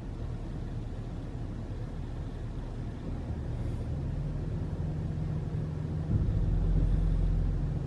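A vehicle driving at low speed, its engine a steady low hum that firms up about four seconds in and grows louder about six seconds in.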